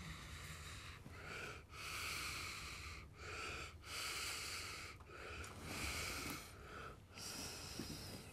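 Faint, slow breathing of a person close to the microphone: a series of breaths in and out, each about a second long, with short pauses between.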